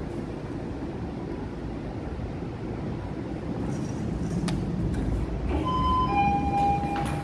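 Residential passenger lift arriving at a landing: a low rumble that swells as the car comes in, a click, then an electronic two-tone arrival chime, higher then lower, as the doors open near the end.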